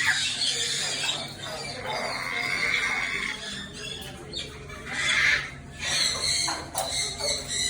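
A crowd of birds squawking and calling over one another, with a louder burst of shrill calls about five seconds in.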